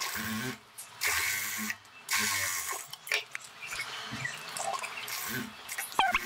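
Chiffon fabric rustling and sliding on a sewing table as it is smoothed and folded by hand, in several rustling spells with short pauses between them, and a sharp click about six seconds in.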